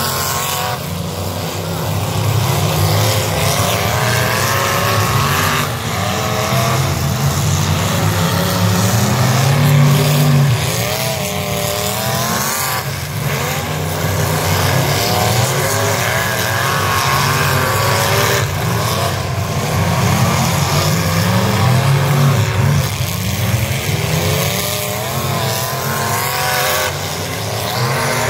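V8 off-road derby cars' engines revving hard, several at once, their pitch rising and falling over and over as they spin and push across the dirt arena.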